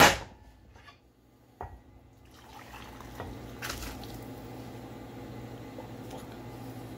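Hot liquid poured from a small metal saucepan, a steady pouring trickle that starts about two seconds in, after a loud clunk at the very start.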